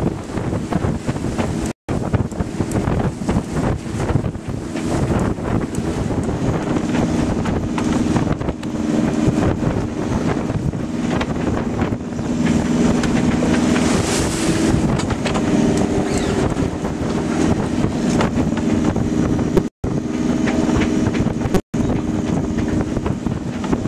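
Strong wind buffeting the microphone over waves and spray rushing past a sailing yacht's hull in rough water. A steady low drone sits underneath from about seven seconds in, and the sound drops out for a moment three times.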